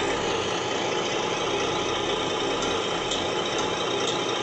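Simulated truck diesel engine idling, played by an RC truck sound module through a small box speaker. Faint regular ticks, about two a second, join in about halfway through.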